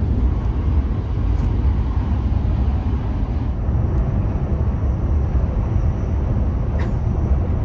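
Steady low rumble of a Hayabusa Shinkansen bullet train heard from inside its passenger cabin while the train is running, with a faint click near the end.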